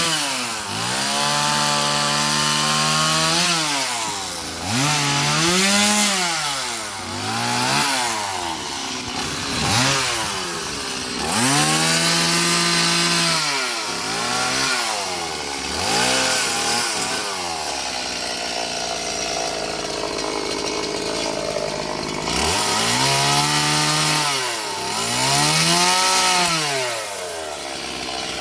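Gas chainsaw engine revved up and eased off over and over, its pitch rising and falling about a dozen times, with a stretch of lower, steadier running near the middle, as when the saw is pulled down under load in the wood.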